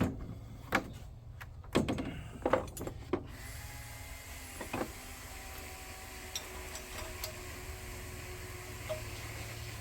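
A handful of knocks and clunks of tools and hard objects being handled and moved, spread over the first five seconds, then a steady low hum.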